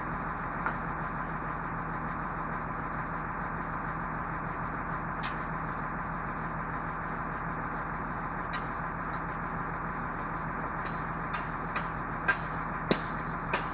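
Truck engine idling steadily, typical of a cherry picker or crane truck running to power its hydraulics. From about the middle on, a scatter of sharp clicks and knocks, coming closer together near the end.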